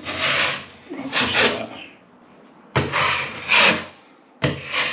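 Metal scraper blade drawn across freshly filled holes in a ceiling, scraping off the excess filler to leave it flush. Four rasping strokes, roughly one a second, with short pauses between them.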